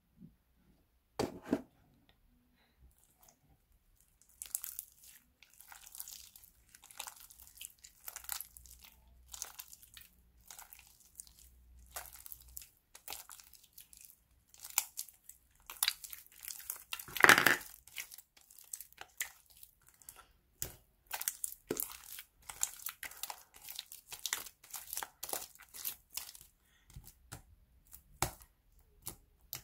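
Dark slime being stretched and squished by hand, giving runs of small sticky crackles and pops, loudest a little past halfway. A single thud comes about a second in.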